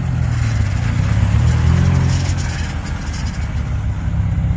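Car engine running, its revs rising briefly about a second and a half in, then settling.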